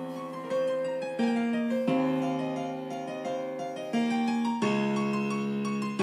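Piano music with chords struck every second or two, each one fading away, played back through small budget Bluetooth speakers turned up near 90% volume.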